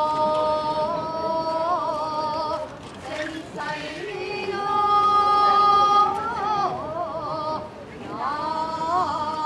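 Shigin, the chanted poetry recitation that accompanies a Japanese sword dance: a solo voice holding long drawn-out notes with wavering ornaments, in three phrases with short breaks about three and seven seconds in.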